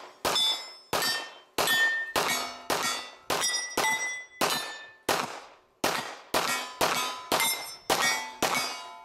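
Rapid handgun fire at steel targets: about sixteen shots, roughly two a second, each followed by the clang and fading ring of a struck steel plate.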